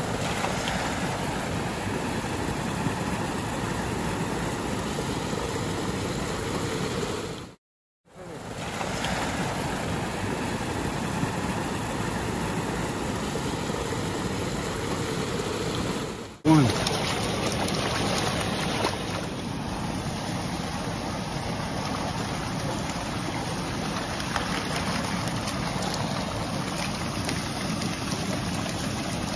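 Steady rush of fast-flowing water in a trout-farm channel. It drops out briefly about a quarter of the way in, and a short loud knock comes about halfway through, after which the rush carries on.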